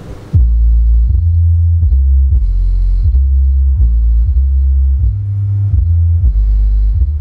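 BOB Audio SW-112 SE 12-inch active subwoofer playing the bass line of music loudly, with almost nothing heard above the deep notes. It comes in suddenly about a third of a second in, and the low notes change about every two-thirds of a second.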